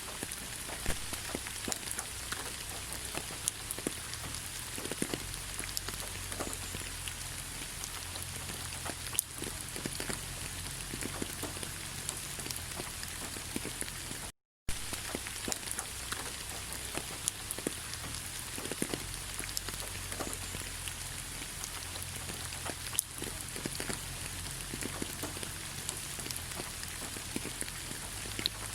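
Steady rain falling, with many separate drops ticking through the even hiss. About halfway through the sound cuts out completely for a moment, then carries on as before.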